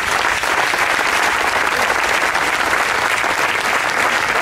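Seated audience applauding steadily, many hands clapping at once.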